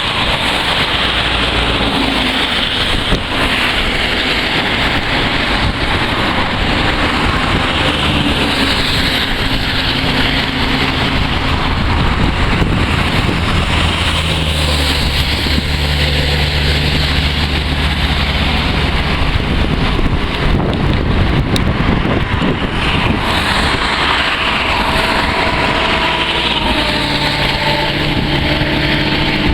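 Steady road traffic noise with a low engine hum, with wind on the microphone.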